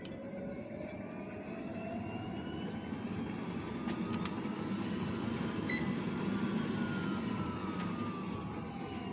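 Life Fitness 95T treadmill running after its repair: the drive motor's whine rises in pitch as the belt speeds up, then falls as it slows, over a steady low rumble. There is one short beep a little past the middle.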